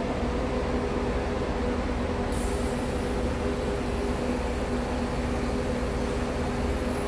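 Idling bus engines, a steady deep drone with a constant hum. A faint high whine starts about two seconds in and slowly falls in pitch.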